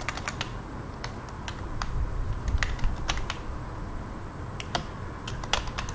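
Computer keyboard being typed on: irregular key clicks with short pauses between bursts.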